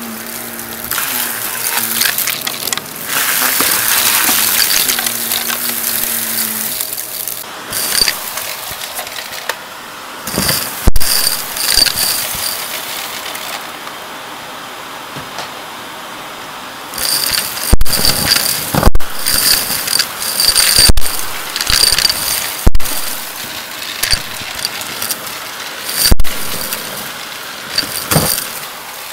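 Shark Navigator XL upright vacuum running and sucking up a pile of confetti, lint and debris through its hose wand. Hard pieces, pennies among them, rattle up the wand as loud sharp clacks every second or two, from about ten seconds in.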